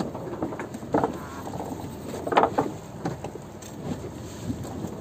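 Steady wash of a fishing boat at sea, broken by scattered short knocks and splashes; the loudest comes about two and a half seconds in.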